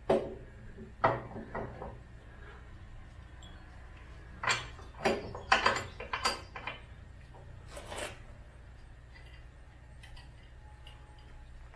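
Steel drawbar knocking and scraping against the tractor's steel rear receiver hitch as it is worked into the receiver tube: sharp metal clanks, a few early on, then a quick run of them around the middle and one more about eight seconds in.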